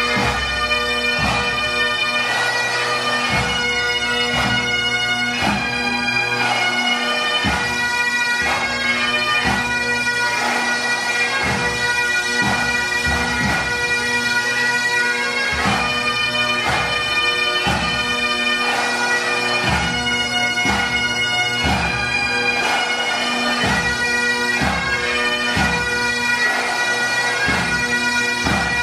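Bagpipe music: a melody played over steady, unbroken drones.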